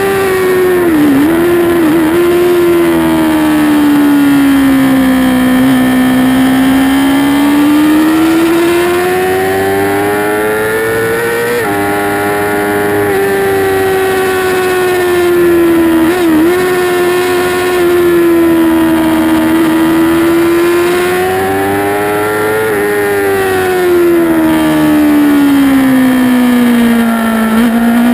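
2008 Yamaha YZF-R6's inline-four engine at race pace, heard onboard: the engine note rises and falls with the throttle through the corners, with quick dips at the gear changes as the rider shifts down. A steady wind rush runs underneath.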